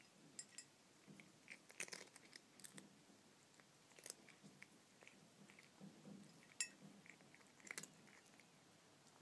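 A cat chewing and crunching dry cat kibble, faint, in scattered small bites with a few sharper crunches.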